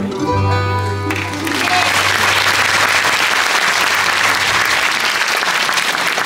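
A folk band's last chord on acoustic guitars, banjo and upright bass rings out, then the audience breaks into applause about a second in and keeps clapping.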